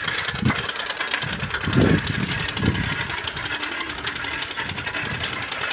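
Cut plastic bottle tied to a moving bicycle, rattled by the turning wheel's spokes into a fast, steady, motor-like buzz. A few low thumps come through underneath.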